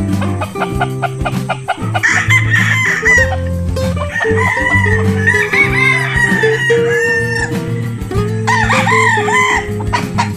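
Gamefowl roosters crowing and clucking over background music with a low bass line.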